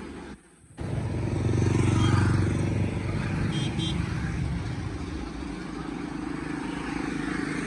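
Roadside traffic noise. A motorcycle's small engine passes close by, loudest about two seconds in, and then eases into a steady hum of passing vehicles.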